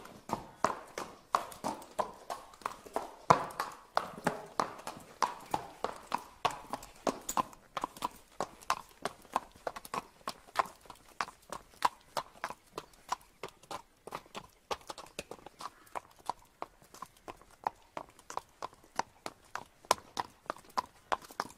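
Horse hooves clip-clopping at a walk, a steady rhythm of about three sharp strikes a second.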